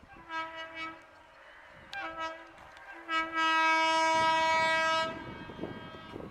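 WAP-7 electric locomotive's horn sounding as the train approaches: two short blasts, then a long steady blast about three seconds in, the loudest part.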